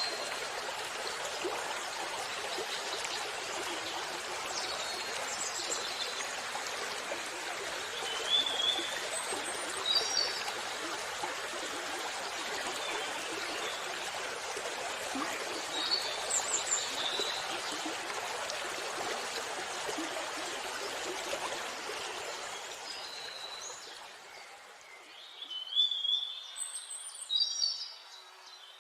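Steady rush of a waterfall with birds chirping now and then over it. About three quarters through the water sound fades down, and a few louder bird calls stand out near the end.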